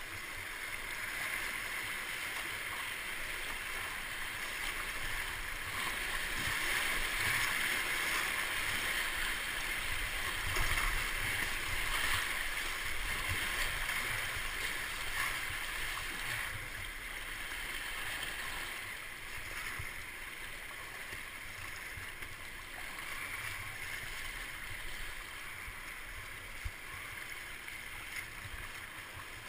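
Whitewater rapids rushing and splashing around a kayak, heard from the boat itself; the water gets louder through the middle as it runs the waves, then eases into calmer flow near the end.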